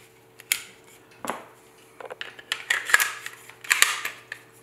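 Sig Sauer P320 pistol being handled: two sharp metal clicks in the first second and a half, then a run of sliding scrapes and clicks of its steel parts.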